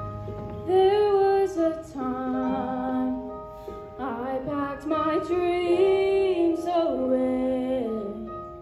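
A solo female voice sings a slow ballad in two held phrases, with a short break about four seconds in, over sustained accompaniment chords.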